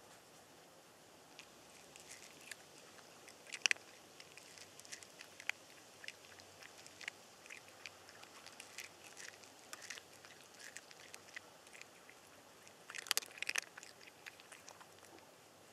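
A cat crunching dry food: irregular small crunches and clicks, with a louder burst of clicks about 13 seconds in.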